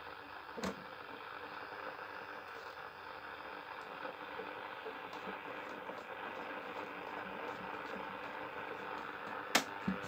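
Leningrad 010 Stereo radio receiver hissing and crackling with shortwave static from its loudspeaker as the tuning knob is turned. There are two sharp clicks, one about half a second in and a louder one near the end.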